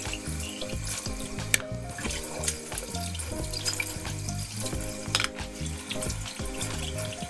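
Kitchen tap running into the sink as glasses and a mug are rinsed under the stream, with a few sharp clinks of glassware.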